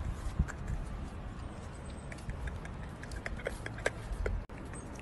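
Outdoor background noise: a low, uneven wind rumble on a phone microphone, with scattered faint clicks.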